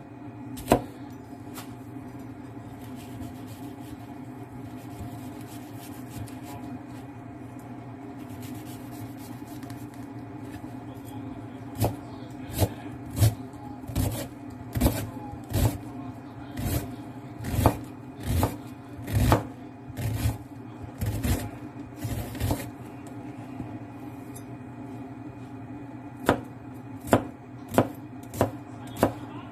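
Kitchen knife chopping an onion on a cutting board: sharp knocks of the blade on the board, roughly one or two a second, starting about twelve seconds in, pausing briefly and resuming near the end, over a steady low hum.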